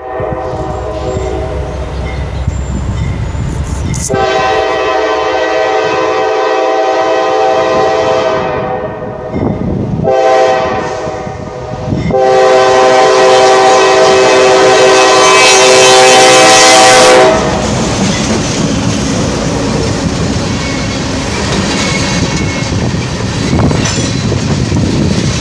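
Locomotive air horn sounding a chord in four blasts: long, long, short, long, the last blast the loudest and longest. This is the pattern of a grade-crossing warning. It is followed by the steady rumble and clickety-clack of the train rolling past.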